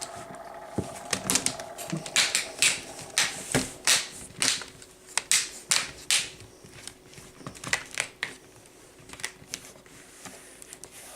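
Plastic screen cover of a Lenovo IdeaPad S210 laptop being pressed and popped back into place around the display: a run of irregular sharp plastic clicks and snaps, thinning out toward the end.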